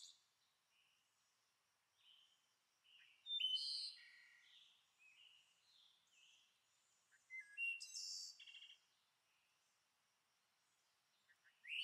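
Faint songbird singing: short phrases of quick chirps and whistled notes, one phrase every four seconds or so, with softer single notes between them.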